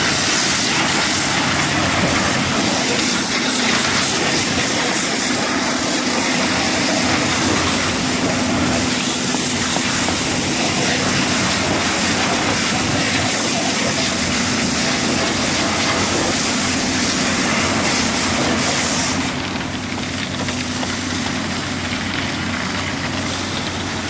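Hose spray nozzle hissing hard against the concrete-caked steel inside a concrete mixer truck's drum and hopper, over the truck's diesel engine idling steadily. The spray gets a little quieter about nineteen seconds in.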